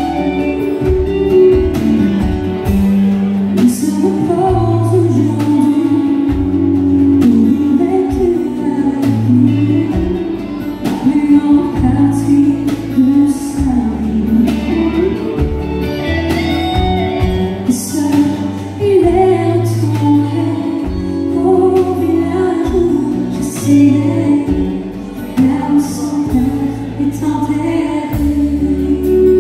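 Live country band performing a song: a woman sings lead over electric and acoustic guitars and a drum kit, with a steady bass line and cymbal strokes.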